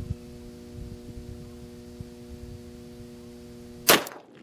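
A single .357 Magnum shot from an H&R single-shot break-action gun fitted with a .357 rifle barrel, one sharp report near the end. Before it there is a steady electrical hum, which stops right after the shot.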